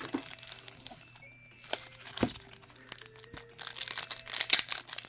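Plastic wrapping of Pokémon booster packs crinkling and tearing as they are opened and handled, with scattered clicks at first and the crinkling thickening and growing louder in the last second or so.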